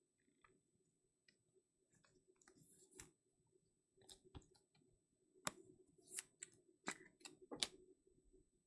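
Quiet clicks and light rustles of trading cards and foil card packs being handled on a tabletop, with about half a dozen sharper clicks in the second half.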